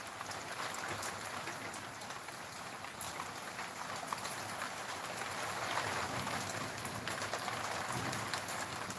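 Steady monsoon rain falling, a continuous hiss with a dense patter of individual drops.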